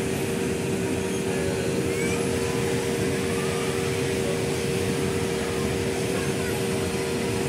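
A steady mechanical drone: a constant hum of two close notes over an even hiss, with no change in pitch or loudness.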